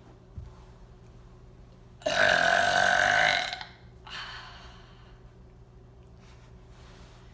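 A woman's long, loud burp starting about two seconds in and lasting about a second and a half, followed by a fainter breathy sound.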